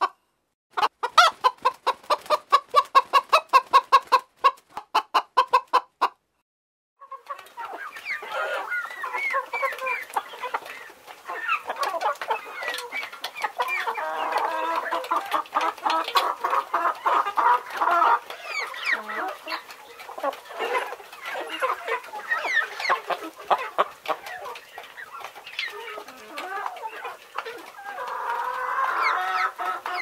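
A chicken clucking quickly and evenly, several short clucks a second, stopping about six seconds in. After a brief pause, a flock of chickens clucks and chatters over one another for the rest of the time.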